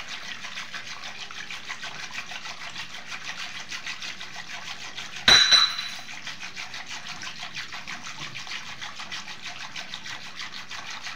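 Wire whisk twirled fast between the palms, churning milk cream with lukewarm water in a steel pot to separate out butter: a rapid, even, wet sloshing rhythm. About five seconds in, a single sharp metallic clink rings out, the loudest sound.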